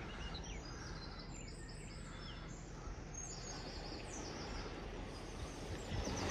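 Steady outdoor background noise with faint small birds chirping and tweeting on and off.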